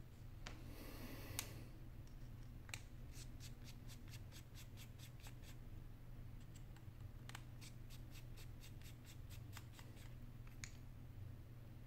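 Faint small clicks of a precision screwdriver turning the bottom pentalobe screws of an iPhone 8 Plus, in two runs of about four ticks a second. Near the start there is a brief scrape and a click as the phone is handled.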